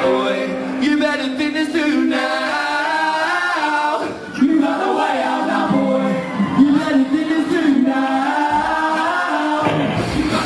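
Voices of a live band singing together with almost no accompaniment, the bass and drums dropped out; the low instruments come back in just before the end.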